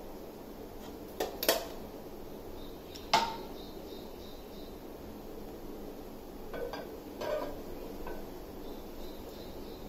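Kitchen clatter of metal cookware: a sharp knock with a short ring about three seconds in, then a few clanks near the end as a frying pan is set down on the gas stove's metal pan supports, over a steady background hiss.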